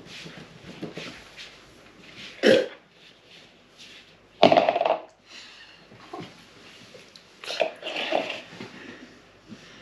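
A man gagging and spitting a chewed-up sun-dried tomato into a plastic bowl, with retching noises. The loudest retch comes about four and a half seconds in, with a shorter one before it and more about two and a half and seven and a half seconds in.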